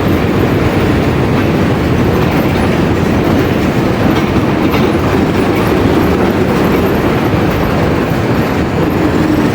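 Mercedes-Benz OF 1721 diesel bus running steadily and loudly, a continuous low rumble with no change in pace.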